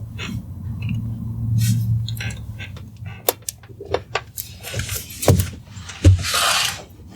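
Handling sounds on a treatment table: a low hum at first, then a run of clicks and knocks, two heavier thumps and a brief rustle near the end, as a person lying face down is moved and positioned.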